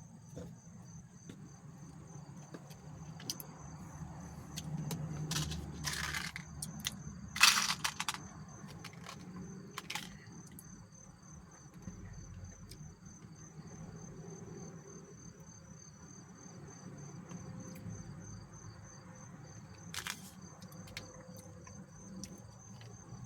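Crickets chirping steadily, a high pulsing trill throughout, with several short clicks and rattles of handling in the first ten seconds and one more near the end.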